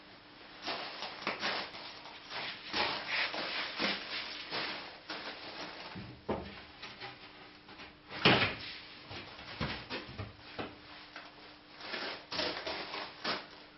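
Scrapes, rustles and knocks from setting a sheet of OSB board upright against a timber formwork frame, with footsteps on crushed stone; the loudest knock comes about eight seconds in. A faint steady hum runs underneath.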